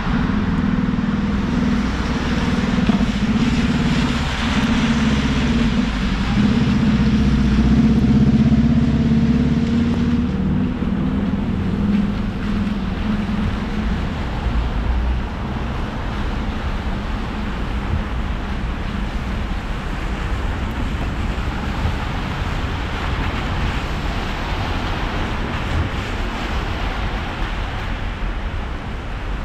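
Car driving in the rain: a low engine hum with a steady pitch, loudest about eight seconds in, fades after about twelve seconds and leaves a steady hiss of tyres and rain on the wet road.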